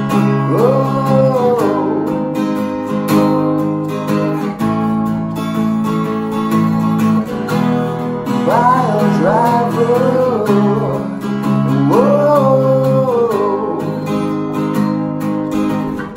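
Cutaway acoustic guitar strumming chords steadily. A wordless voice sings gliding notes over it about a second in, again from about eight and a half seconds, and again around twelve seconds.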